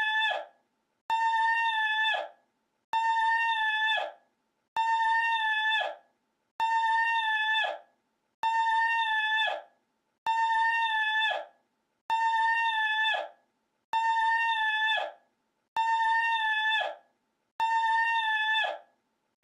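The same short high call looped over and over, about once every two seconds: each is a steady, buzzy high note held for about a second that drops in pitch as it ends, with silence between repeats.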